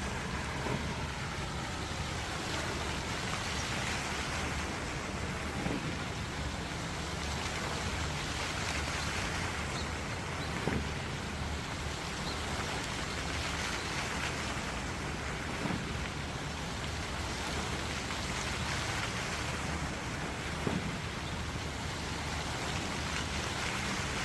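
Many fountain jets spraying up and splashing down into a pond: a steady, rain-like hiss of falling water, with no music.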